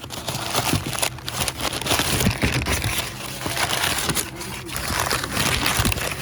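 Loud crunching, crinkling handling noise with scattered knocks and clicks, as of a shipping package being handled.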